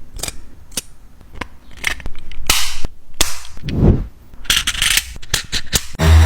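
A series of irregular sharp clicks and snaps, with a short whooshing noise in the middle and a quick cluster of clicks near the end.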